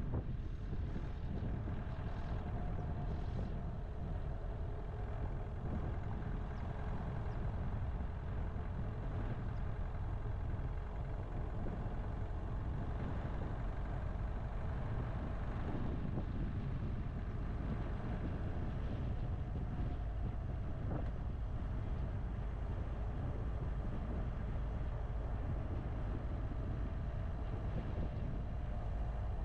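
Car driving along a dirt road: a steady low rumble of tyres and wind on the microphone.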